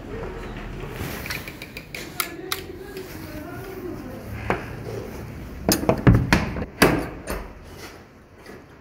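A wooden door being shut and its metal hasp and padlock handled: scattered clicks, then a cluster of loud knocks and metallic clanks near the end.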